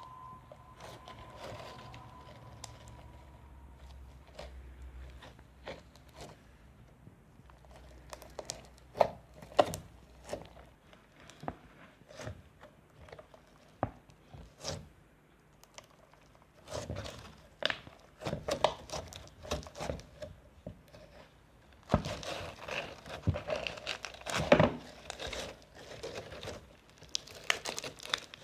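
Glitter slime being squeezed and played with by hand, giving irregular crackly pops and crinkling, growing dense and busy for the last several seconds.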